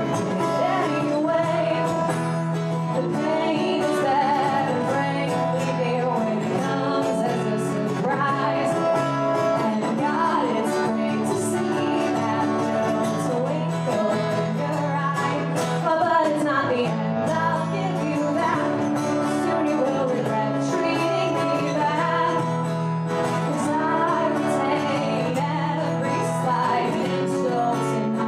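Two acoustic guitars played together with a woman singing.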